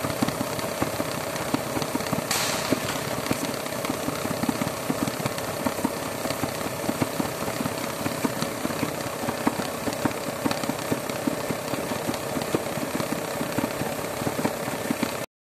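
Narrow-web label printing press running steadily, a continuous mechanical hum with many fast, irregular ticks. A short hiss about two seconds in. The sound cuts off abruptly near the end.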